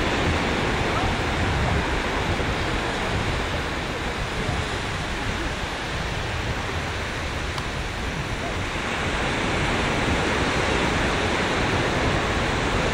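Ocean surf breaking and washing on a sandy beach, a steady rushing noise, with wind rumbling on the microphone.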